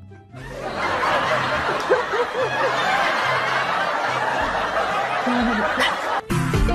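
Laughter from several people, snickering and chuckling, with faint background music underneath. It cuts out briefly at the start and again near the end.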